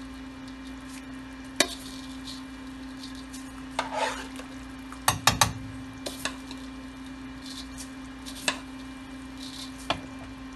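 Spoon knocking and scraping against a large metal pan as rice is stirred into simmering tomato sauce: a few sharp knocks, with a quick run of three about halfway, and a scrape about four seconds in. A steady low hum runs underneath.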